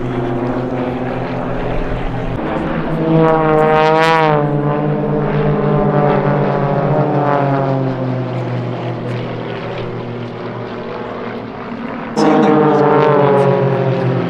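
Engines of a formation of large radio-controlled aerobatic model planes droning as they fly past. Their note swells and drops in pitch about three seconds in, and again near the end, when it turns suddenly louder.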